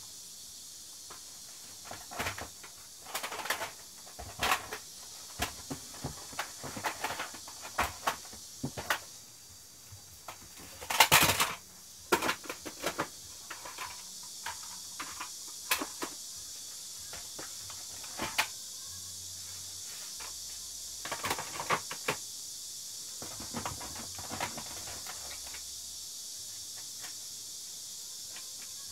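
Plastic cassette tape cases clicking and clattering irregularly as they are handled, lifted out of cardboard boxes and set on shelves, with a louder burst of clatter about ten seconds in. A steady high hiss runs underneath.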